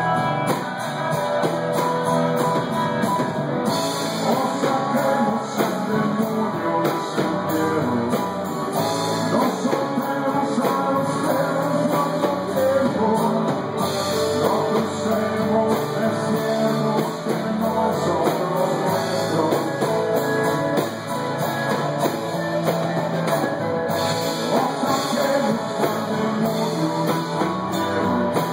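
Live rock band playing a song: electric bass, guitars and drum kit, with a man singing at the microphone.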